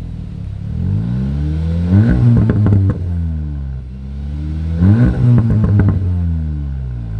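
SEAT Leon Cupra engine blipped twice, the pitch rising and then falling away each time. Each rev ends in a rapid burst of exhaust pops and crackles on the overrun, about two seconds in and again about five seconds in.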